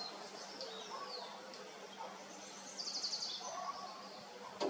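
Gray kingbird giving a quick, high chattering trill about three seconds in, among a few faint thin falling whistles. A single sharp click near the end.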